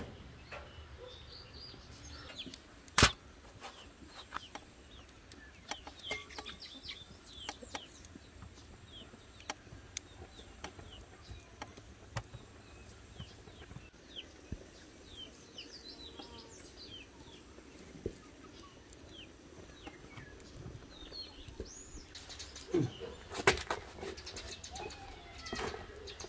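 Outdoor ambience of small birds chirping on and off, with scattered sharp knocks and clicks; one loud knock about three seconds in and a cluster of clattering near the end.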